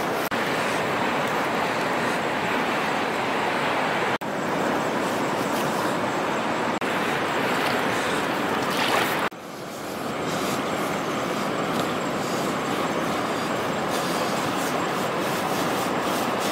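Steady rushing noise of flowing river water, broken by two brief dips about four and nine seconds in.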